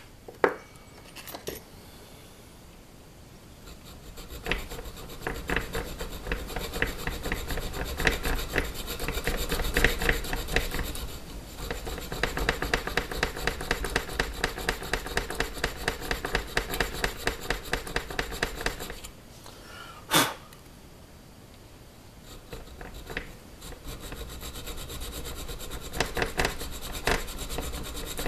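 Hand file rasping over the steel of a 1911 pistol slide clamped in a vise, in runs of quick, even strokes, to fit a sight snugly. The filing pauses in the middle. There are sharp knocks near the start and in the pause.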